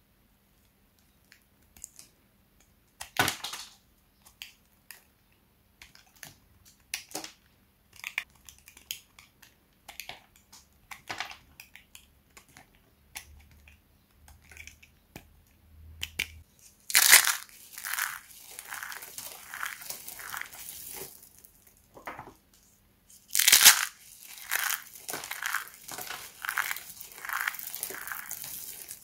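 Dry hard soap being shaved with a knife blade in scattered short scrapes and snaps. About halfway through, a loud crunch starts a stretch of soap pieces being crushed in the hands, a dense crackling crunch. A second loud crunch a few seconds later starts another round of crushing.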